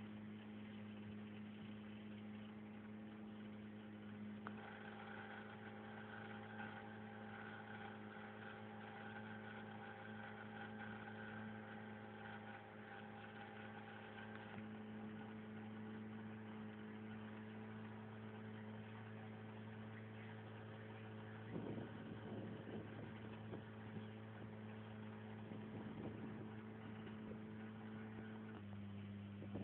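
Boat engine running at a steady speed, an even low drone; its pitch drops slightly near the end.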